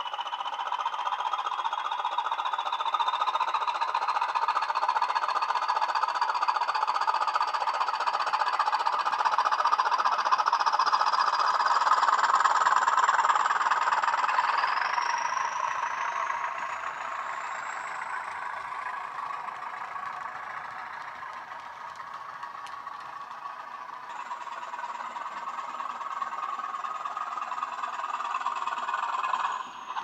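Hornby HM7000 sound decoder playing a Class 20 diesel sound file (English Electric engine) through the model locomotive's small speaker. The engine runs under power, with a high whine rising in pitch twice. The sound grows louder towards the middle, fades for a while, then builds again near the end.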